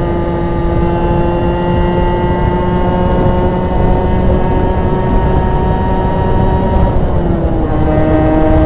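Rieju RS2 50's 50cc two-stroke engine with a custom exhaust, pulling under acceleration while riding. Its pitch climbs steadily, dips at an upshift about seven seconds in, then climbs again, over a steady low wind rush.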